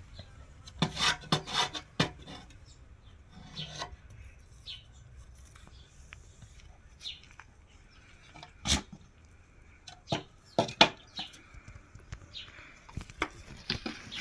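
Young goats' hooves knocking and scraping on a hard surface: irregular clicks and knocks, a few much louder, with rubbing in between.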